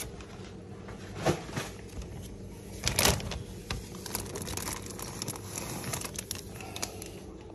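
Plastic bags crinkling and rustling as they are handled inside a polystyrene shipping box, in irregular crackles with louder handling noises about a second in and around three seconds, over a steady low hum.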